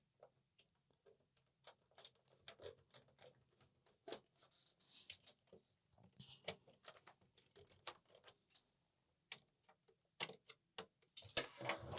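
Faint, irregular small clicks and ticks of a screwdriver turning screws into the plastic case of an Amiga 500, with a few louder clicks near the end.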